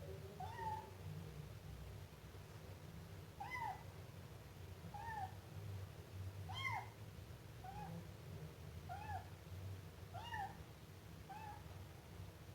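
Siamese kitten meowing: about nine short, high-pitched mews, one every second or so, some rising and falling in a small arch.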